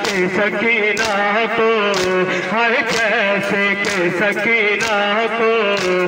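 A male voice chanting a noha lament with heavy vibrato, over the sharp slaps of mourners beating their chests (matam), about one beat a second.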